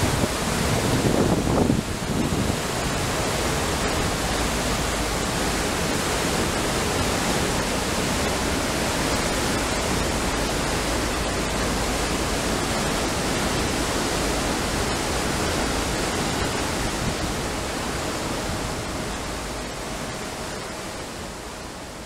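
Steady rushing and hissing of churning seawater in a container ship's propeller wash and wake, louder in the first two seconds, then even, fading out near the end.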